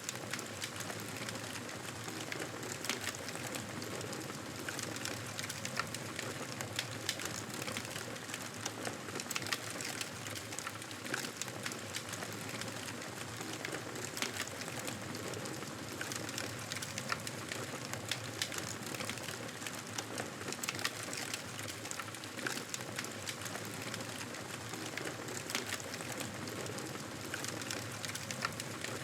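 Wood fire crackling in a fireplace: a steady hiss with frequent small sharp pops and snaps throughout.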